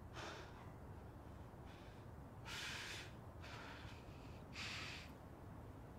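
A young man breathing audibly through his mouth: about five short, faint, uneven breaths, the loudest about halfway through.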